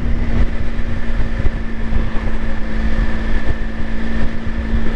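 A vehicle's motor running steadily with a constant hum while wind buffets the microphone.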